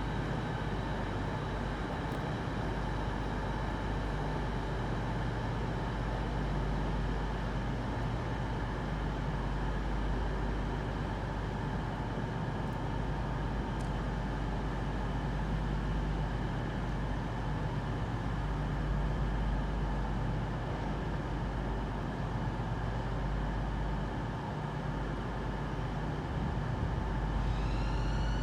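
Southeastern Class 395 Javelin electric train departing: a steady low rumble with an electrical hum. Near the end a whine rises in pitch.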